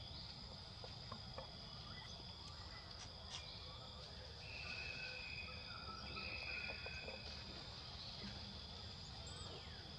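A steady high-pitched insect chorus drones throughout. A second, lower insect call joins in about four seconds in, louder than the rest, in two long stretches, and stops about seven seconds in.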